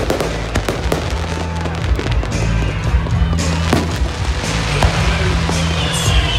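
A fireworks display: a rapid, irregular series of bangs and crackles from aerial shells. Music with a steady bass plays underneath.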